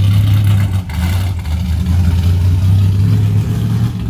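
Classic car's engine running with a deep, steady exhaust note as it pulls slowly away, easing off slightly near the end.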